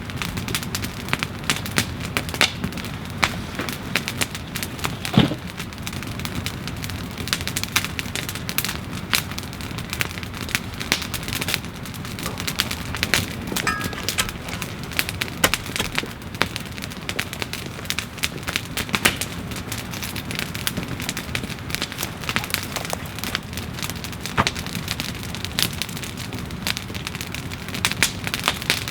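Brush bonfire crackling and popping steadily, close by, with a louder pop about five seconds in.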